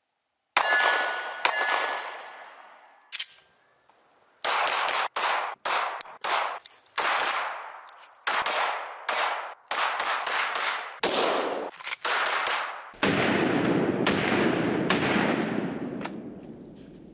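9mm pistol shots fired in quick succession, a dozen or so sharp reports, several cut off abruptly. Two ringing metallic hits open the sequence about half a second and a second and a half in. From about 13 seconds a longer rumbling noise carries a few more cracks and fades out.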